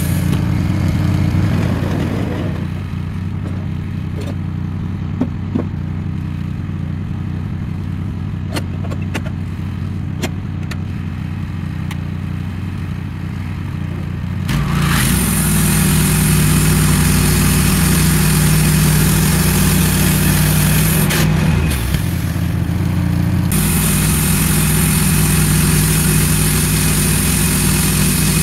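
Wood-Mizer LT15 band sawmill's gas engine running slowly, then throttling up about halfway through as the band blade cuts a 1x6 ash board off the cant. It runs under load with a short dip about two-thirds of the way in, then picks up again.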